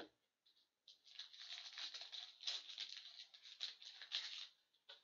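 Foil wrapper of a hockey card pack being torn open and crumpled. A run of dense crinkling and crackling starts about a second in and dies away near the end.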